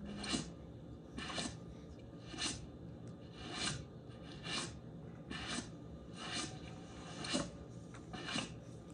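A short rasping sound repeating about once a second, from a film's soundtrack played in the room.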